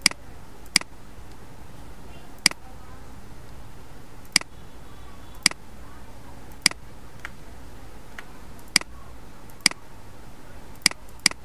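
Computer mouse clicks: about ten sharp single clicks spaced irregularly a second or two apart, with two in quick succession near the end, over a steady low hum.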